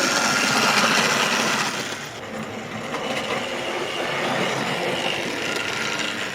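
Tri-ang Hornby Coronation Scott model locomotive running along the track, its small electric motor whining steadily. About two seconds in, the sound drops a little and the whine changes pitch.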